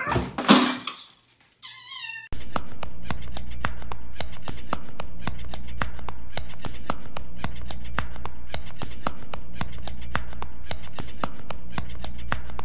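A cat meows in the first two seconds, with short calls that bend in pitch. A sudden cut then brings in a steady low hum with scattered soft clicks, which runs on at an even level.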